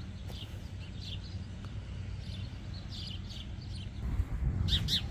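Small birds chirping, short high falling calls repeated every fraction of a second, loudest near the end, over a low outdoor rumble that grows louder about four seconds in.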